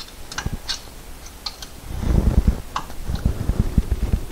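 Wrench and socket clicking as they are fitted onto a tight motor-mount bracket bolt, then from about two seconds in a quick run of dull low knocks as the wrench is worked against the bolt.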